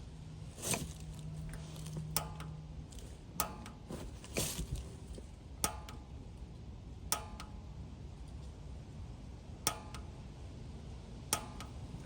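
Piezo pilot igniter on a Rheem Fury gas water heater clicking about seven times, a second or two apart, each a sharp snap with a short metallic ring, as the pilot is being lit with the control knob held down.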